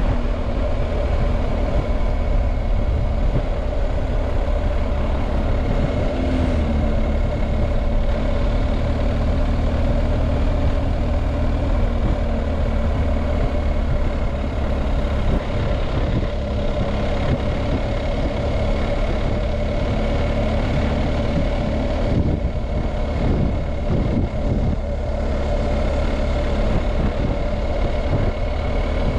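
BMW R1250GS Adventure's boxer-twin engine running steadily at cruising speed, mixed with wind and road noise from riding.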